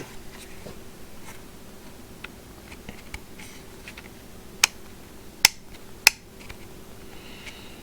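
Handling noise from a cordless impact wrench being turned over in the hands: a few faint taps, then three sharp clicks a little under a second apart about midway, over a faint steady hum.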